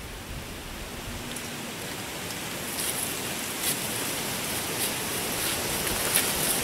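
Steady hiss of rustling dry leaves, growing a little louder, with a few soft crackles from about halfway in.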